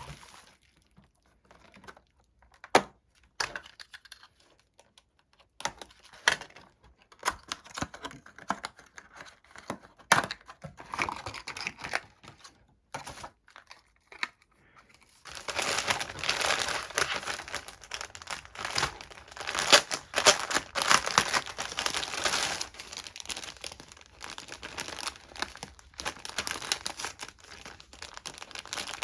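A parcel being unwrapped by hand: packaging crinkling and tearing, first in scattered crackles and taps, then continuous crinkling from about halfway through.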